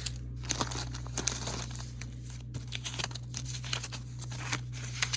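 Papers and receipts being handled and sorted, rustling and crinkling in short irregular bursts.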